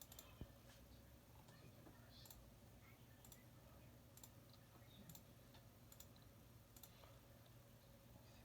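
Faint computer mouse clicks, single sharp clicks roughly once a second, over a low steady hum.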